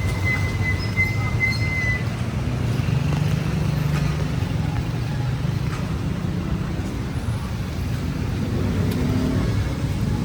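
Steady low rumble of motor-vehicle engines and road traffic, with a thin high whine in the first two seconds.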